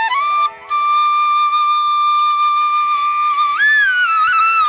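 Background music: a single wind-instrument melody line, mostly one long held note, with a short break about half a second in and a slide up and back down near the end.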